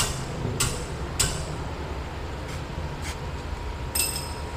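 Toyota Hiace engine running at idle, a low rumble with a sharp click every half second to second. The noise comes from its worn, too-soft engine supports (engine mounts).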